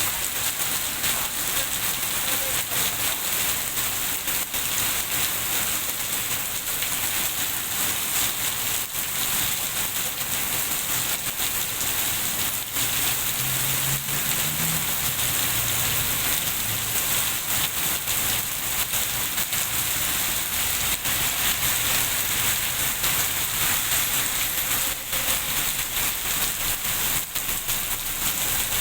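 Rain falling steadily, a dense, even hiss of drops.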